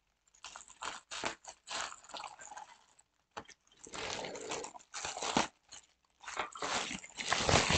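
A mail package torn open by hand, its packaging crackling and ripping in irregular bursts with short pauses.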